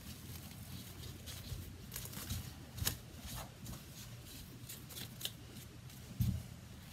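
Wired ribbon and jute rustling and crinkling as they are pressed and shaped by hand, with scattered small clicks and a dull thump about six seconds in.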